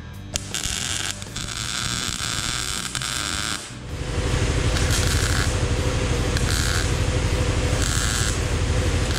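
MIG welder laying short tacks to fill small holes in a Model A Ford's steel firewall, crackling in bursts of a second or less with short pauses between. From about four seconds in, a low steady pulsing hum joins and the sound gets louder.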